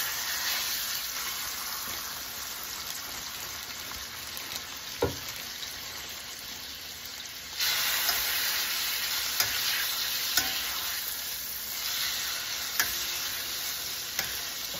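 Chicken thighs sizzling in hot butter and olive oil in a stainless steel frying pan, the sizzle stepping up louder about halfway through. A few sharp clicks of metal tongs against the pan are heard over it.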